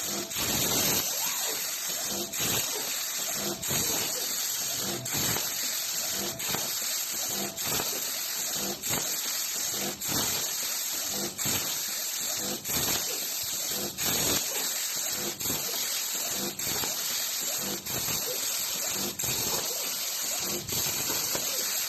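CNC plasma torch cutting sheet metal: a steady rushing hiss of the arc and its air jet, dipping briefly about once a second.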